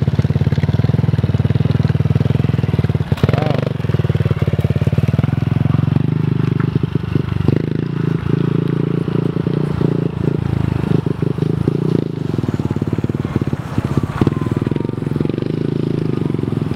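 Small 110cc mini dirt bike engine running steadily, its note shifting a little as the throttle changes.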